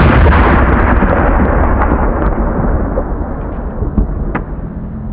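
A large ground firework explodes with a sudden loud blast, followed by a long rumble that slowly fades, with a few sharp pops over it.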